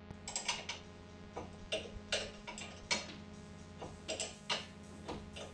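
Ratchet wrench clicking in short, uneven runs, a few clicks a second, as it slowly tightens the screw of a ball-joint puller to press a front suspension ball joint out of its tapered seat.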